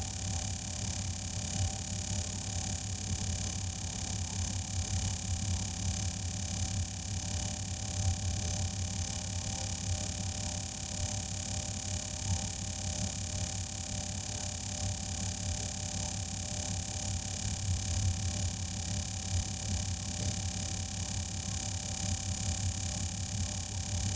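Tire being inflated to 44 psi after its bead is seated: steady air hiss over the low, fluttering hum of an air compressor.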